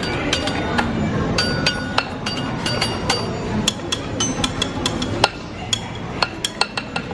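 Rapid, irregular clinks and taps, some ringing briefly at a clear pitch, over a steady background murmur.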